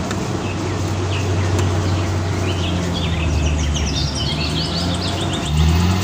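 Rice combine harvester's engine running steadily in the field, a constant low drone. Birds chirp over it from about halfway through.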